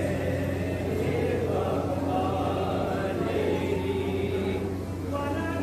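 Voices chanting a devotional recitation in a drawn-out, sing-song melody, over a steady low hum.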